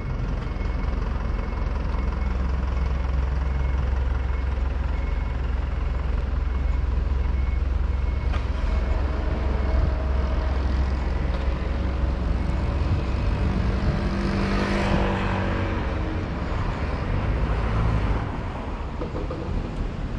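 Road traffic on a street: a steady low rumble of engines and tyres, with one vehicle passing close and loudest about three-quarters of the way through.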